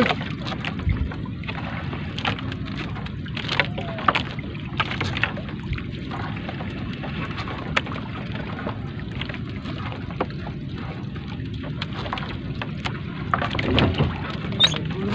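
Wet three-ply trammel net being hauled by hand over the wooden side of a small boat: irregular rustles, light knocks and drips over a steady low rush of wind and water.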